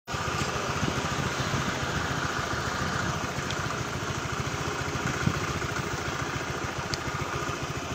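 Honda Air Blade scooter's single-cylinder engine idling steadily, with an even low pulsing. The scooter suffers hesitation and weak power, which the shop traced to an oxygen sensor reading too high a voltage.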